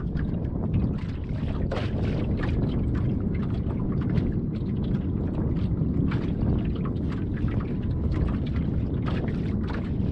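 Steady low wind rumble on the microphone, with water lapping and slapping against the boat's hull in irregular light splashes.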